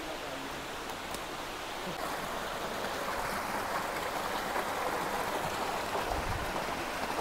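Small forest stream cascading over boulders into a pool: a steady rush and splash of water that grows slightly louder a couple of seconds in.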